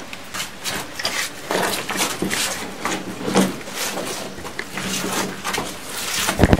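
Footsteps crunching and scuffing over rocky cave ground as several people walk on. Near the end a fast, even run of loud clicks starts, about ten a second.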